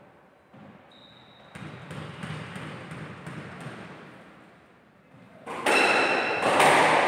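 Squash ball bounced lightly several times on the wooden court floor before the serve, then served about five and a half seconds in: loud racquet and wall hits as the rally starts, with shoes squeaking on the wooden floor.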